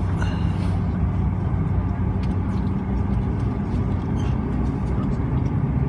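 Bombardier Dash 8 Q400's Pratt & Whitney PW150A turboprop engine and propeller running on the ground. A steady low drone with a few held low tones, heard from inside the cabin.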